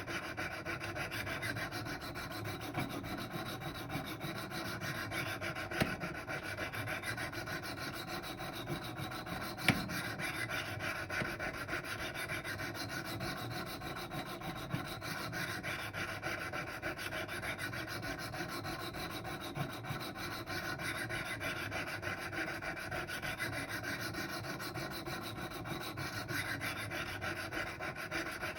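Wicked Edge sharpening stones stroked over and over along the steel edge of a Rex 45 knife blade, a steady rasping scrape with a few sharp clicks between strokes. The passes are raising a burr on the second side of the edge during reprofiling to 15 degrees.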